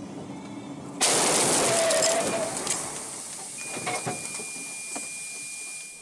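A car windshield smashing about a second in, hit by debris from the truck ahead: a sudden loud crash with crackling glass. It dies down over about a second and a half into hissy road noise with a few knocks, and a steady high beep sounds through the second half.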